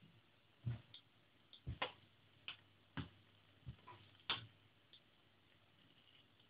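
Faint, irregular clicks and ticks from a non-stick frying pan of potato slices frying, about ten scattered over the first few seconds, then almost nothing.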